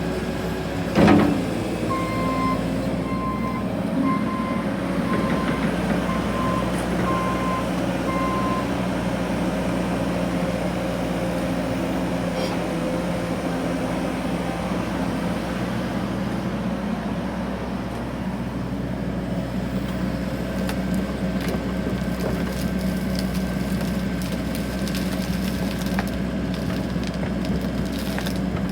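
Excavator's diesel engine running steadily, with one loud clank about a second in. A warning alarm beeps about once a second for several seconds.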